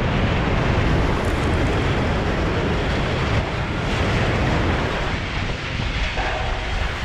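Steady rumbling of an imploded power plant building collapsing, its structure and debris coming down in a cloud of dust, with no single distinct blast.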